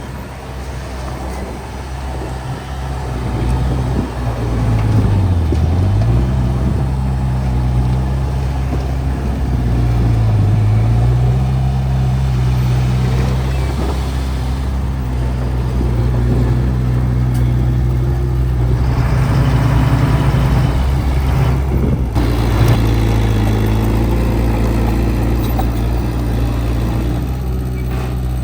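Heavy earthmoving machine's diesel engine running under load. Its pitch dips briefly and recovers twice, about five and ten seconds in.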